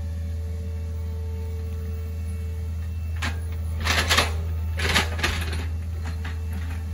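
Hitachi ZX48U mini excavator's diesel engine running steadily under work, with a few short scrapes and knocks from about halfway through as the bucket digs and dumps soil.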